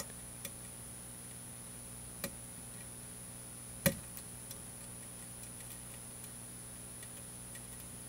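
Small metallic clicks of a lock pick lifting the pins inside a Medeco M3 mortise cylinder held under tension. A few soft clicks come at irregular moments, with a sharper one just before four seconds in that is the loudest.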